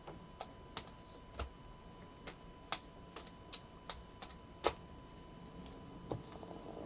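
A dozen or so sharp, irregularly spaced clicks and taps, with a faint steady tone underneath.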